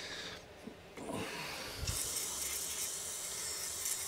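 Aerosol spray hissing steadily through a straw nozzle into a carburettor float bowl, starting about two seconds in, to clean out its corrosion. Some light handling and rubbing noise comes before it.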